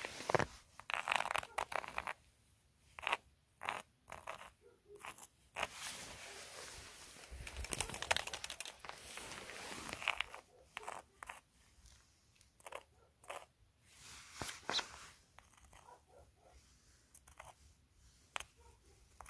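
Footsteps crunching in snow: a run of uneven crunches, with a longer stretch of continuous crunching in the middle.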